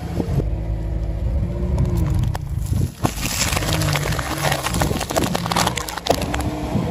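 A car engine runs with a low hum while the tyre rolls over soft marshmallows, played in reverse. About three seconds in, a dense run of crackling and sharp clicks comes from Pringles cans and crisps crushed under the car tyre, also played backwards, with the engine still running beneath.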